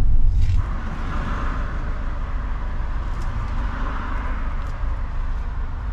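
Vehicle noise: low road rumble inside the moving camper van, changing about half a second in to a steady hiss and hum of traffic or an idling engine.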